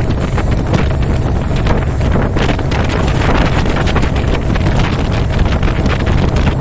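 Meter-gauge express train passing at speed: a steady low rumble with rapid wheel clatter, under heavy wind buffeting on the microphone.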